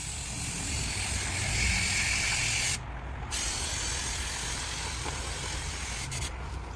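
Spray paint hissing out of the nozzle in two long bursts, with a short break a little under three seconds in, as a part is sprayed glossy black.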